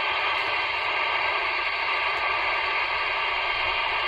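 CB radio receiver hissing steady static through its speaker, with no station coming through.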